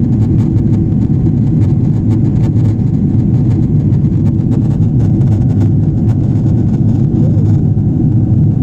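Steady low rumble of a Boeing 777's jet engines and airflow, heard from inside the aircraft in flight.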